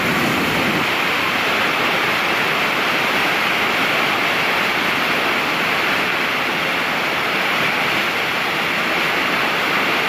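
A large waterfall pouring: a steady, loud rush of falling water heard from close by.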